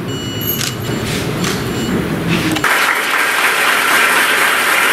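Audience applauding, with several camera shutter clicks and a low murmur in the first part. About two and a half seconds in, the sound switches abruptly to louder, even clapping.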